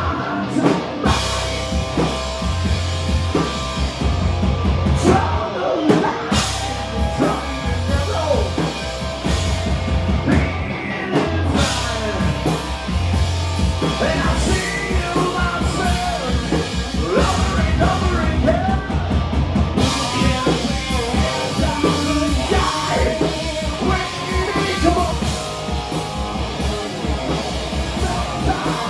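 Live rock band playing, with sung vocals over a drum kit and a steady, loud low end.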